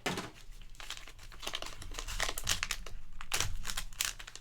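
Plastic packaging being crinkled and torn open by hand, with a dense, irregular crackling that goes on throughout.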